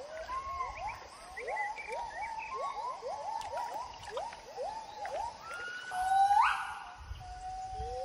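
Gibbons singing: a fast run of short rising whoops, then about six seconds in a louder, longer note that climbs and holds.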